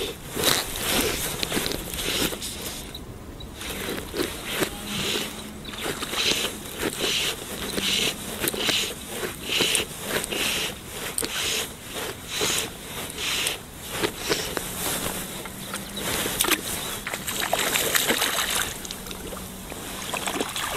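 Hooked trout splashing at the surface as it is played in and netted: a run of repeated splashes and sloshes, often about two a second.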